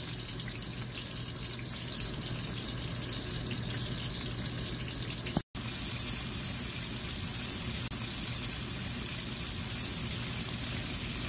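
Whole long-tailed tuna frying in oil in a wok: a steady hiss of sizzling oil, with a faint low hum underneath and a split-second gap about five and a half seconds in.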